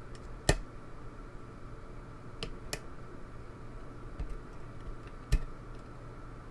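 Small sharp metallic clicks and taps of lock-picking tools, a hook pick and tension bar, working in a pin tumbler lock: five or so separate clicks spaced irregularly, the loudest about half a second in and again near five seconds in.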